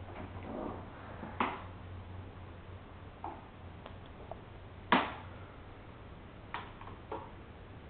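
Scattered light knocks and thumps, about six in all, the loudest about five seconds in, over a faint steady low hum.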